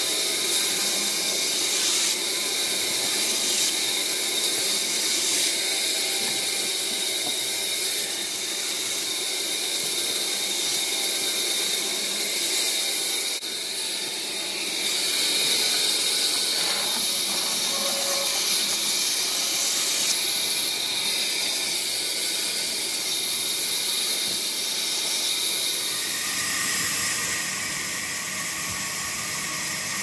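JAI J550E electric band saw running, its blade ripping logs on the sawmill table, a steady hissing noise strongest in the high range. The sound changes near the end.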